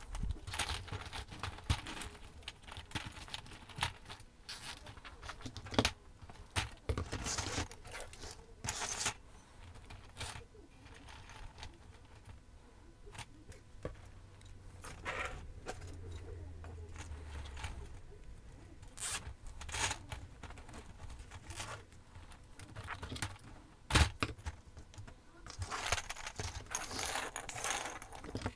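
Scattered clicks, clatters and scrapes of Christmas ornament balls and metal wire star frames being handled, with cable ties zipped tight. A few sharper clicks stand out, one about six seconds in and one near twenty-four seconds.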